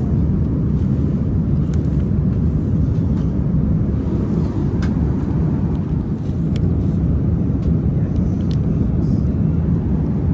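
Steady low roar of airflow and engines heard inside an Airbus A380 passenger cabin in flight, with a few faint clicks.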